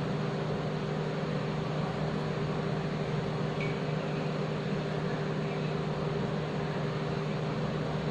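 A steady low hum over an even hiss, unchanging throughout: background room noise from something running nearby.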